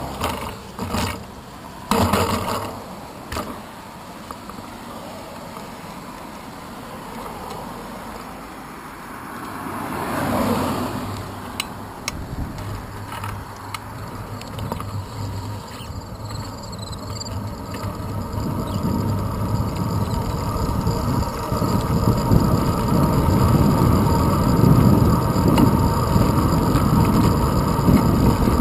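Wind and road noise picked up by a handlebar-mounted GoPro Hero 2 on a road bike, growing louder over the last ten seconds as the bike gathers speed. There are a few sharp knocks in the first three seconds. About ten seconds in, a car passes and its sound falls in pitch.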